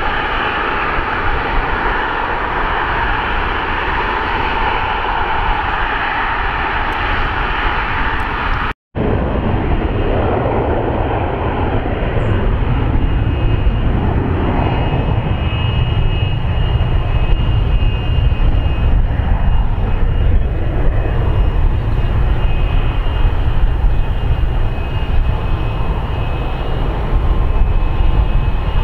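Regional jet turbofan engines running as the airliner taxis, a steady jet noise. The sound cuts out for a moment about nine seconds in, then a second regional jet's engines come in with a low rumble, joined a few seconds later by a thin steady whine.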